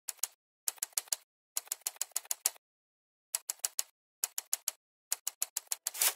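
Typewriter keys clacking in quick, irregular runs of a few strokes each, with short pauses between the runs.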